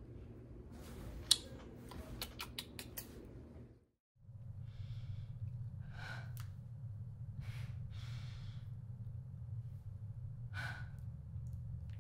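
A woman breathing and sighing, about five breaths a second or two apart, over a steady low room hum. A run of short sharp clicks comes before them, and the sound drops out for a moment just before the first breath.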